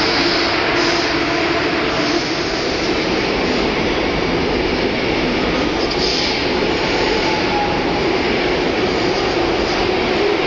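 ICE 2 (DB Class 402) high-speed train cars rolling past close by along the platform: a steady, loud rumble of wheels and running gear with a faint hum underneath.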